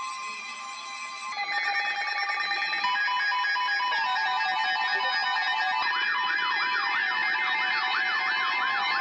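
Layered electronic alarm tones building up: steady beeping tones at several pitches, with more pulsing tones joining every second or so, then a siren-like warble sweeping up and down about three times a second from about six seconds in.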